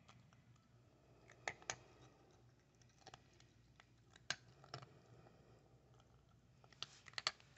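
A cat crunching dry kibble from a stainless steel bowl: soft, irregular crunches and clicks, with a quick cluster near the end.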